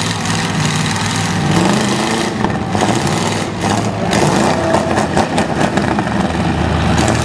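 Demolition derby cars' engines running loud and revving as the cars shove against each other, with a few sharp knocks about five seconds in.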